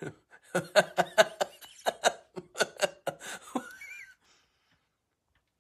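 A man's deliberately fake, exaggerated laugh: a quick run of loud 'ha' bursts for about three seconds, trailing off about four seconds in.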